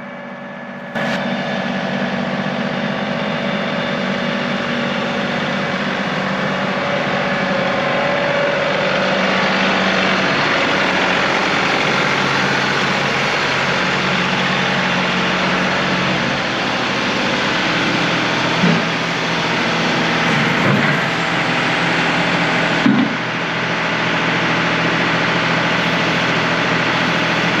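John Deere 2038R compact tractor's diesel engine running steadily, its pitch shifting a little now and then.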